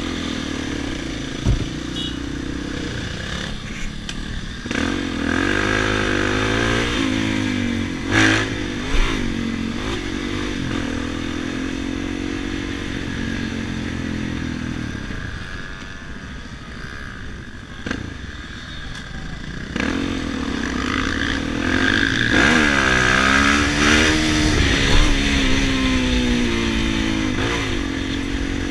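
Motorcycle engine heard from the rider's seat, revving up and easing off as the bike rides along, its pitch rising and falling in two spells with a quieter stretch mid-way.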